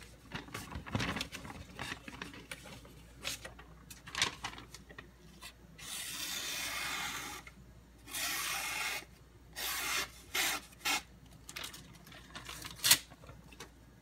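Steel kitchen knife blade scraping across a Nubatama Ume 1000 grit whetstone in sharpening strokes. The strokes are irregular: a few short ones, two longer passes in the middle, then quick short strokes, with a sharp knock near the end.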